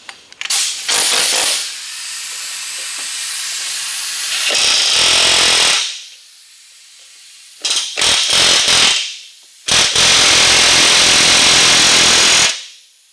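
Pneumatic air chisel hammering at the rivets that hold the brake parts to a truck spindle, run in bursts: a long run of about five seconds, a few short bursts, then another long run of nearly three seconds.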